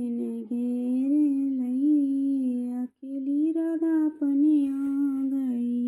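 A woman's voice, unaccompanied, singing a slow wordless melody of long held, gently wavering notes in two phrases, with a brief break for breath about three seconds in.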